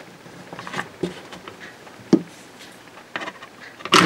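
Sharp metal clicks and knocks from an AR-15 rifle being handled and opened up on a table, with a tool pressed against the receiver to push out a pin. The clicks come about once a second, and the loudest knock is right at the end.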